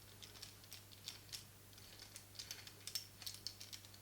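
Faint, irregular clicks and taps of small metal camera-mount parts being handled and fitted together: an articulating magic arm being attached to its super clamp.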